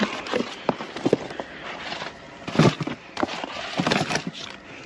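Frozen food boxes and plastic-wrapped packages being lifted, shifted and dropped onto a pile, making irregular knocks and clatter with rustling of cardboard and plastic. The loudest knock comes about two and a half seconds in.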